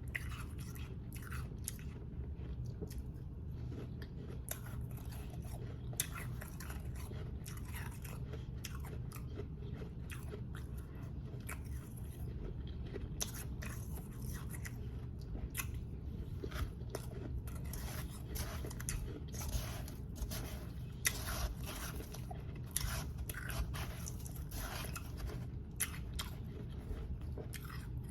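Close-miked biting and chewing of powdery ice: a dense, irregular run of crisp crunches throughout, thicker in the second half, over a steady low hum.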